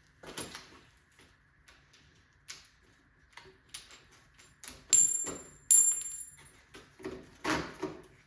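Irregular knocks and clicks from a mountain bike's fork and headset parts being worked loose as the old fork comes out of the head tube. About five seconds in come two sharp metallic clinks that ring briefly, then heavier knocks near the end.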